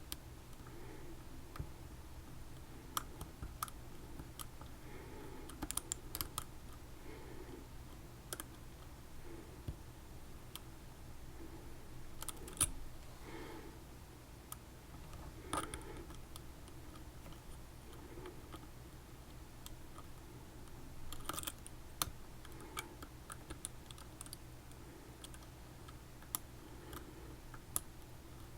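Lock pick and tension wrench working the pin stacks of a Mul-T-Lock Jr lock: faint, irregular small clicks and light scrapes from the pick in the keyway, scattered throughout, over a steady low hum.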